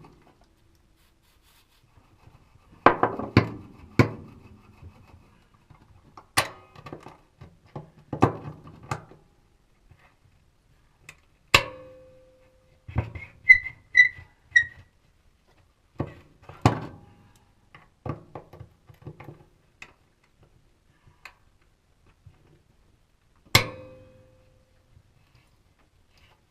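Irregular knocks and clanks of hand tools on steel while floor bolts are being worked loose; two of the strikes ring briefly like struck metal. About halfway through come three short high squeaks.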